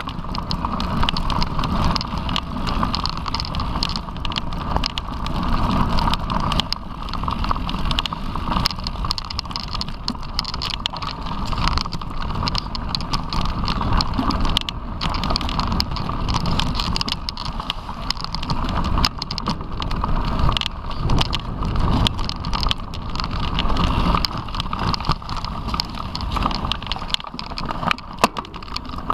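Mountain bike riding on a bumpy dirt trail, heard from a camera mounted on the bike: steady tyre noise with constant small rattles and knocks over the bumps, and wind on the microphone.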